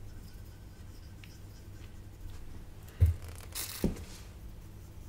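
Bench handling noise over a low steady hum: a dull knock about three seconds in, a short hiss, then a second knock.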